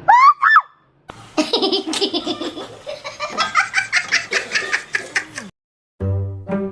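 A person laughing hard for about four seconds, in quick pulsing bursts, after a brief high squeal at the start. Plucked-string music starts near the end.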